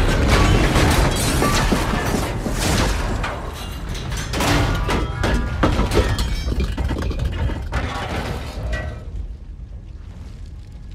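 Film sound effects of an explosion's aftermath: crashing and clattering metal debris over heavy low booms, with music underneath. The din dies down about nine seconds in.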